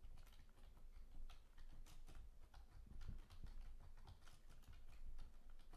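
Faint, irregular typing on a computer keyboard: scattered soft clicks and taps.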